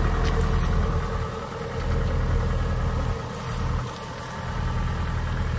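Kubota DC-60 combine harvester's diesel engine idling with a steady low hum, dipping in level a few times.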